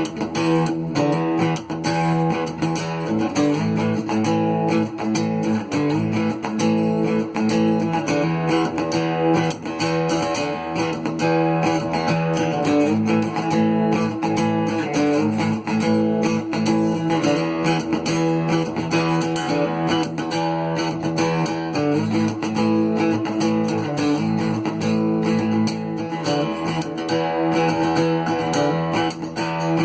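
Cort GA5F-MD acoustic-electric guitar played in its lower register: a run of quick plucked notes over low notes that ring on, continuous with no pauses.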